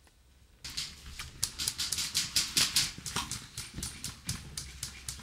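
A quick, irregular run of sharp clicks and knocks, about six or seven a second, starting abruptly after a brief quiet moment.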